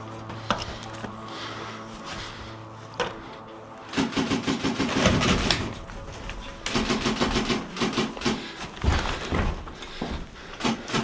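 Background music with a steady low drone. From about four seconds in, a loud run of thumps, knocks and rustling from footsteps and gear on wooden boards.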